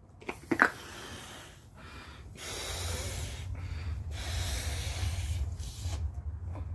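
A person blowing up a latex balloon by mouth: several long, forceful breaths rush into the balloon, with short pauses between them to draw breath. A couple of short sharp sounds about half a second in are the loudest moment.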